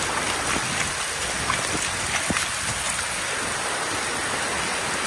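Heavy rain pouring down onto a flooded road with the floodwater rushing over it: a steady, dense hiss that keeps one level throughout.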